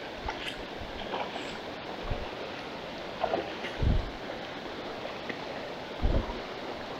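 River water rushing steadily, with three dull, splashy thumps about two seconds apart, the loudest near the middle and toward the end, as someone wades through the current.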